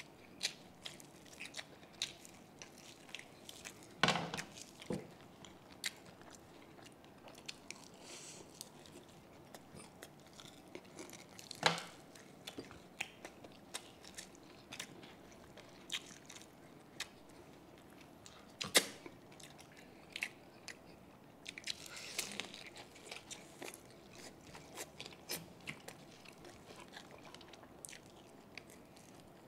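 Close-up mouth sounds of people chewing and biting crispy deep-fried pork belly (lechon kawali): soft wet chewing with scattered small crunches and clicks. Sharper, louder crunches come about four, twelve and nineteen seconds in.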